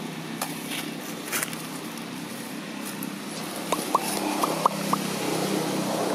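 Steady low hum of distant engine traffic, with a quick run of five short rising squeaky calls a little past the middle.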